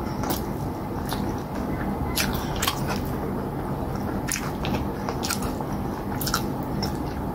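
Close-up mouth sounds of eating cassava fufu with slimy okra soup by hand: wet chewing with irregular sharp lip-smacks and clicks, over a steady low hum.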